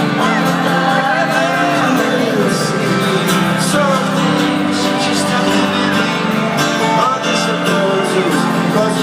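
Live rock band playing loud through a stadium sound system, with guitar and a sung vocal line over sustained chords.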